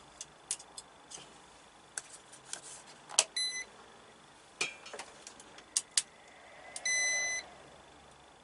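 12 V 150 W power inverter beeping as it powers up: a short beep about three seconds in and a longer one about seven seconds in, both at the same high pitch. Scattered sharp clicks and taps come between them. The beeps show the inverter is on, the sign it has been wired the right way round.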